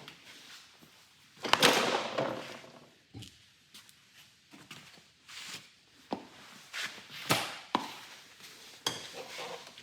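Tools and parts handled on a workbench: a stretch of clatter about a second and a half in, then several separate sharp knocks spaced irregularly in the second half.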